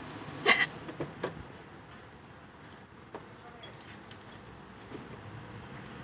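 A woman's sharp hiccup about half a second in and a second, softer hiccup just after a second in, then keys jangling in short bursts of high metallic clicks through the middle.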